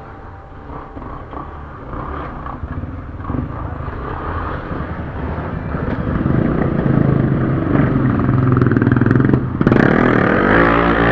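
Several trail motorcycle engines running at low speed as the bikes pick their way over dirt and rubble. The sound grows louder from about six seconds in, and near the end an engine revs up, its pitch rising.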